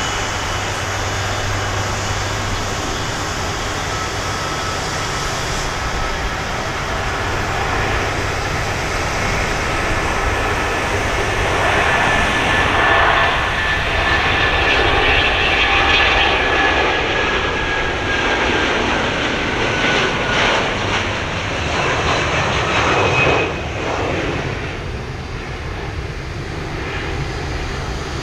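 Airbus A330-300's twin Rolls-Royce Trent 700 turbofans at takeoff thrust as the airliner rolls, lifts off and climbs out. The noise builds to its loudest mid-way, with a high whine that slides slowly down in pitch as it passes, then drops off sharply and fades as it climbs away.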